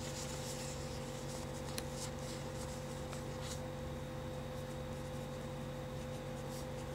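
Faint scratching strokes of someone writing, a few in the first half, over a steady background hum.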